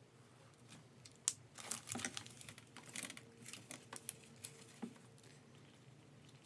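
Pen, highlighter and textbook handled on a desk: a sharp click about a second in, then a flurry of paper rustles, light knocks and clicks, ending with a few single clicks near the five-second mark.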